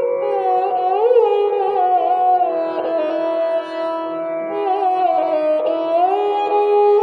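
Esraj being bowed, playing a slow melody of long held notes joined by smooth slides up and down in pitch.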